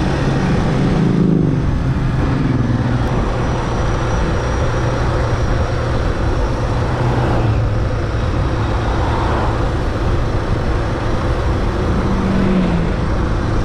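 Suzuki DR650's single-cylinder four-stroke engine running at a steady cruise, under a steady rush of wind noise across the microphone.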